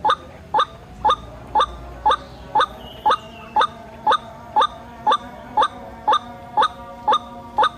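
White-breasted waterhen (ruak-ruak) call: a short, sharp rising note repeated steadily about twice a second, the bird-lure call used to draw in waterhens.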